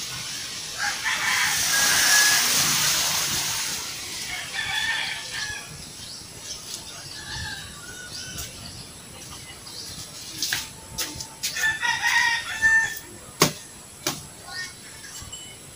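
Rooster crowing, with several sharp knocks in the second half, the loudest about thirteen seconds in.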